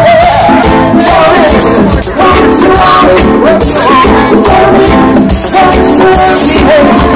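Live reggae band playing loud: a male singer at the microphone over electric guitar and drums keeping a steady beat.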